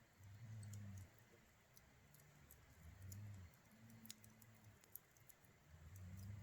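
A wood campfire crackling faintly, with sparse irregular sharp pops and ticks. Four low rumbles, each under a second long, come and go underneath.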